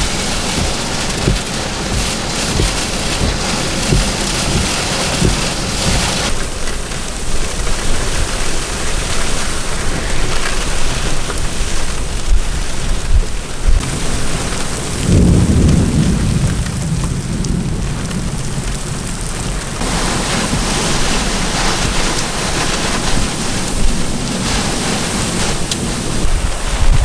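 Thunderstorm: heavy rain and gusting wind as a steady loud rush, with a low rumble of thunder about fifteen seconds in that fades over a couple of seconds.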